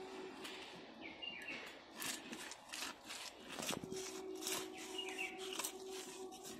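Bhetki (barramundi) being cut crosswise on a bonti, the fish's scaly body dragged against the fixed curved blade in a run of short scraping strokes, mostly from about two seconds in. Birds chirp faintly in the background.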